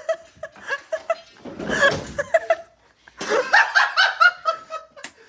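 People laughing, in bursts of short choppy laughs.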